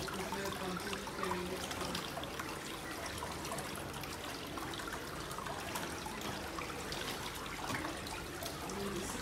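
Water trickling and swirling steadily in a pedicure foot-spa basin.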